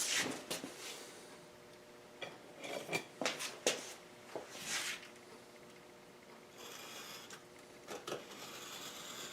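Two-sided scroll saw tape being put onto a wooden board and rubbed down by hand: scattered soft swishes, rubs and small clicks with quiet gaps between them.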